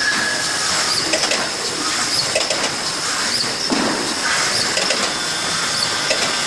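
OPTIMA-1700DS automatic flatbed die cutting machine running in production on corrugated board, a steady mechanical hiss with a repeating cycle about once a second.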